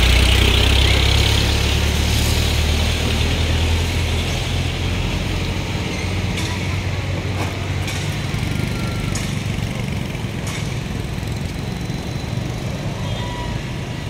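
A motor vehicle's engine running close by, loudest at the start and slowly fading over the following seconds. A few faint clicks come in the middle.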